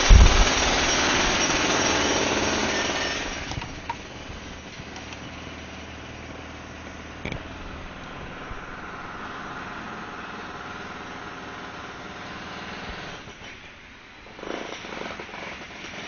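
Building-site jackhammer hammering loudly for about three seconds, then stopping, leaving a quieter steady machine hum with a knock midway and a few bumps near the end.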